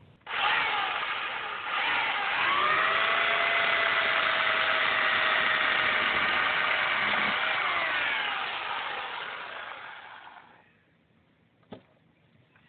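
WEN 4017 16-inch corded electric chainsaw cutting through a tree branch. Its motor starts abruptly, dips in pitch and gets louder about two seconds in as the chain bites into the wood, holds steady through the cut, then winds down and stops near ten seconds. A single click comes about a second after it stops.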